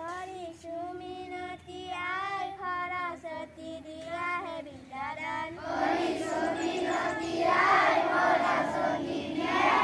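Children singing a prayer song: a single child's voice sings a line alone, then a little over halfway through the whole crowd of children joins in, louder, singing together.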